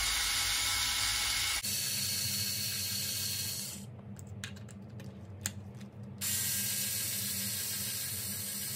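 Cordless electric screwdriver running as it backs out the screws holding an RC car's center differential, a steady motor whir with hiss. It stops for about two seconds near the middle and starts again about six seconds in.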